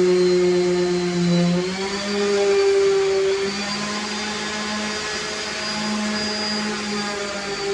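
Small electric motor of a power tool running continuously, with a steady hum whose pitch steps up about two seconds in and then wavers slightly.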